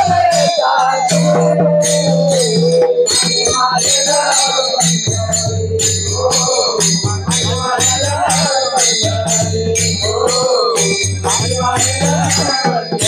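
Warkari bhajan ensemble: small brass hand cymbals (taal) striking a steady beat and ringing, with a barrel drum (mridang) and harmonium holding low notes, as men sing a drawn-out melody of the abhang.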